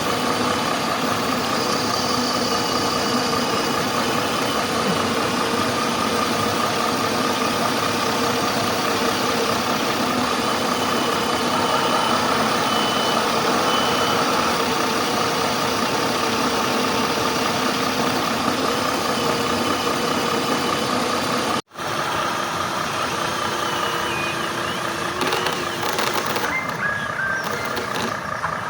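Truck engines running steadily under load in a tug-of-war, with a wavering whine over the engine note. The sound breaks off for an instant about 22 seconds in and then carries on.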